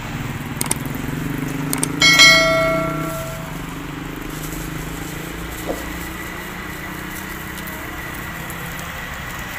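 Busy roadside food stall: a low steady hum of nearby traffic, a few small clicks, and about two seconds in a single loud metallic clang that rings for about a second.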